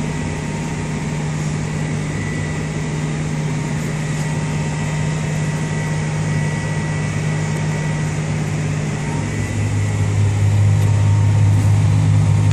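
A tractor engine runs steadily under load while pulling a sugar beet harvester, heard from inside the cab as a deep, even hum with a faint high whine above it. The hum grows a little stronger from about nine seconds in.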